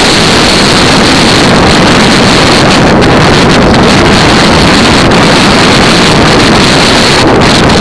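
Steady, loud wind noise rushing over the microphone of a bicycle-mounted camera at about 50 km/h.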